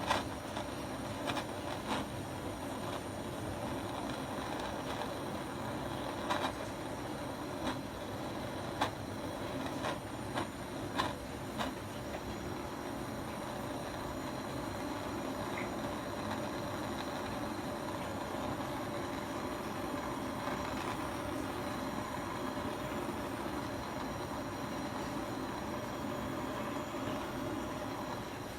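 Steady rushing hiss of a gas torch flame heating the aluminium refrigerator evaporator around a puncture, so that the aluminium filler will flow and bond. About eight light clicks or taps fall in the first twelve seconds.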